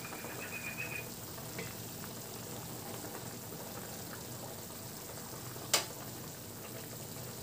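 Pork pieces simmering in broth in an aluminium wok, a steady bubbling hiss, with one sharp clink of a utensil against the pan about five and a half seconds in.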